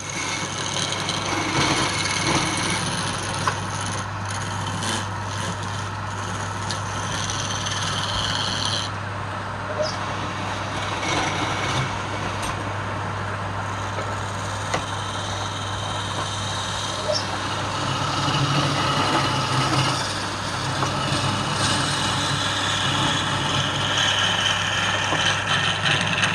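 Electric wood lathe running with a steady hum while a turning tool cuts the spinning wood. The cutting sound shifts in pitch now and then, with a few sharp clicks.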